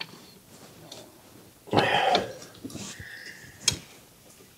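Steel C-clamp screw being turned against a door hinge to push a brake caliper piston back into its bore. There is a short creaking strain about two seconds in, a fainter one after it, and a sharp metallic click near the end.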